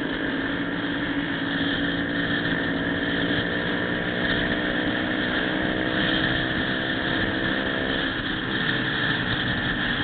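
Motorcycle engine running steadily at cruising speed on the highway, with wind and road noise over the microphone.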